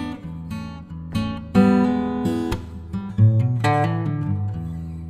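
Acoustic guitar music, plucked chords and single notes each ringing out and fading.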